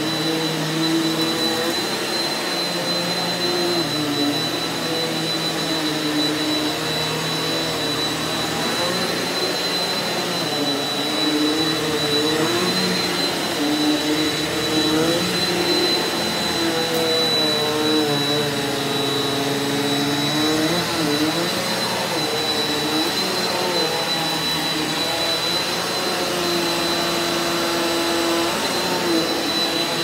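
Eureka bagless upright vacuum cleaner running over carpet: a steady motor whine with a high tone held throughout, its lower hum wavering up and down as it is pushed across the pile.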